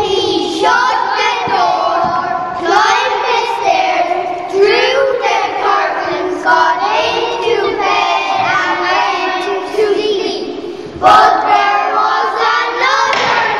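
A group of children singing a song together. A new, louder phrase begins about eleven seconds in.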